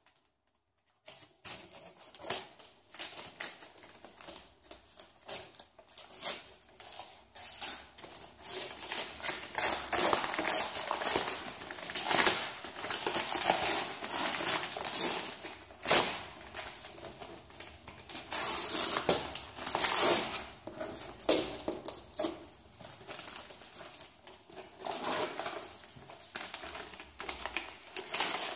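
Brown paper parcel wrapping being cut with scissors and torn open and crumpled by hand, starting about a second in: irregular bursts of rustling, tearing and crinkling with sharp little clicks.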